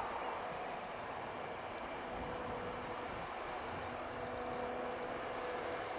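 Steady engine noise with a steady hum, from airport ground operations around an Airbus Beluga XL under tow by a tug. A high insect chirp pulses about four times a second over it, with a couple of brief bird chirps.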